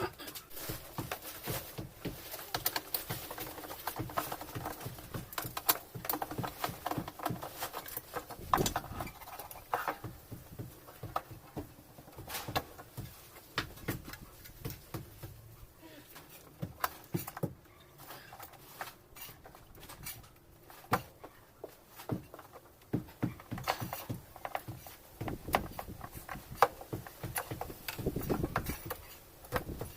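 Irregular clicks, taps and knocks of washing-machine parts and tools being handled and worked on, with no motor running.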